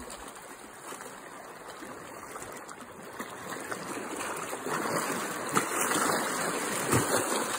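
Lake water splashing and washing over shoreline boulders as a child moves in the shallows, louder in the second half.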